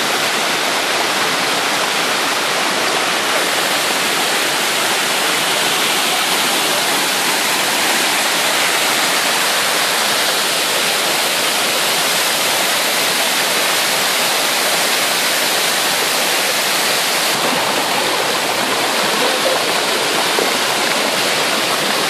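Loud, steady rush of a stream cascading over smooth rock slabs.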